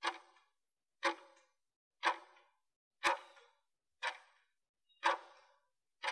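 Timer clock-tick sound effect, one sharp tick about every second, each with a short fading tail, counting down the last seconds of a 30-second work interval.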